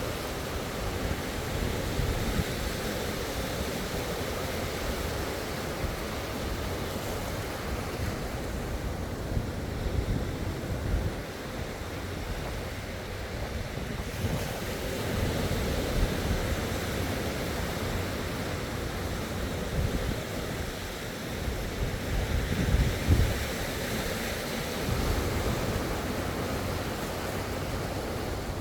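Sea waves washing onto the shore, the surf swelling and easing, with wind gusting on the microphone; the loudest gust comes about 23 seconds in.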